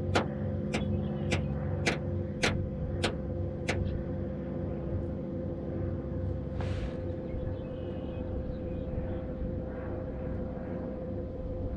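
Boat motor running steadily at low trolling speed, a constant hum. Over the first four seconds about eight sharp clicks come at an even pace, a little under two a second, and a brief hiss sounds near the middle.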